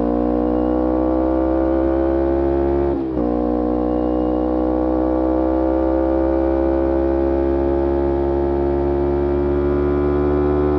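2011 Kawasaki Ninja 250R's parallel-twin engine through a full Graves racing exhaust, pulling in gear with its note rising gently. About three seconds in the note breaks briefly for an upshift, then climbs slowly again.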